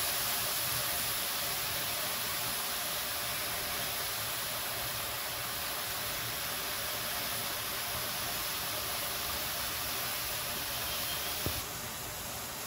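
Small wild mushrooms sizzling and steaming in a wok, a steady hiss. A short click comes near the end, after which the sizzle is a little quieter.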